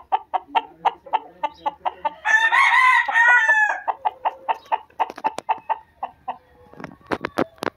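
Claret gamecock rooster clucking in a quick run of short clucks, with a short crow of about a second starting some two seconds in, then more scattered clucks and a few sharp clicks near the end.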